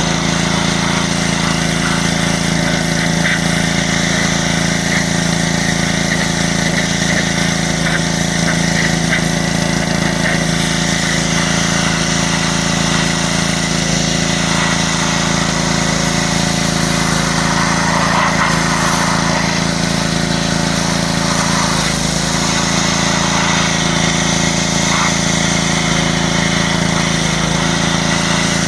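Troy-Bilt 5-horsepower gas pressure washer running steadily: a small single-cylinder engine's hum with the even hiss of the water spray.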